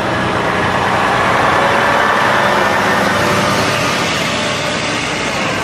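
Semi-trucks pulling tank trailers driving past close by: heavy truck engines running with tyre noise, loud and steady.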